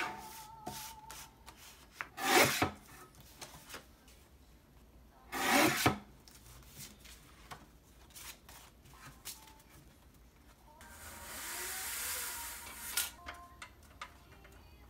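Close handling sounds: two short rubbing or scraping sounds about three seconds apart, light clicks and taps, and a longer hiss near the end.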